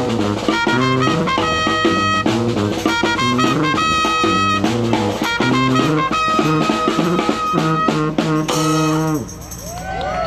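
New Orleans–style brass trio playing an up-tempo tune, with trumpet lead, sousaphone bass line and snare drum. The band closes on a held note about nine seconds in, and the music then stops.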